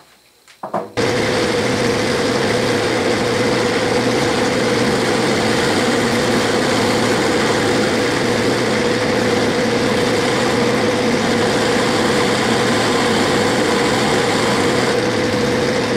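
Metal lathe running with a cutoff tool cutting a shallow flat groove into a spinning metal sleeve: a steady whine over a rushing hiss and low hum. It starts abruptly about a second in.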